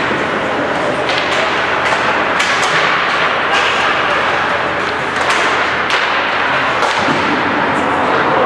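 Ice hockey play in an arena: a steady wash of rink noise broken by a string of sharp clacks of sticks and puck.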